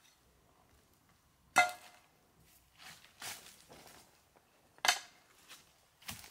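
Hard objects clinking against each other twice, about three seconds apart, each a sharp knock with a short ring, the first the loudest. Soft rustling of dry leaves and grass comes between the knocks.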